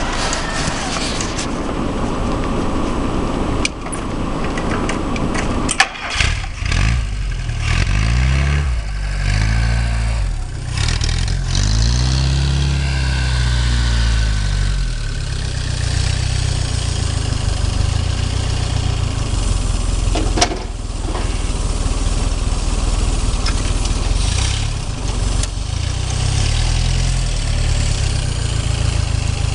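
The homemade tractor's VW Golf engine is started about six seconds in, after some rough handling noise. It is revved up and down several times, then settles into a steady idle.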